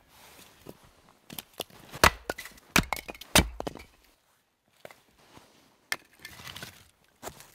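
Hatchet chopping and splitting firewood: a few light knocks, then three heavy chops about two to three and a half seconds in. Near the end, split sticks of kindling knock together as they are handled.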